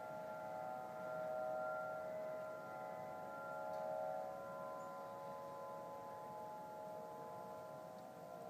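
An unexplained drone in the sky: several steady held tones sounding together like a chord, swelling a little louder twice in the first half. The recordist suspects it is man-made machinery.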